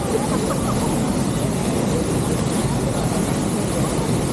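Steady roar of a waterfall with a strong flow of water, the noise heaviest in the low range. Faint voices of other people show briefly near the start.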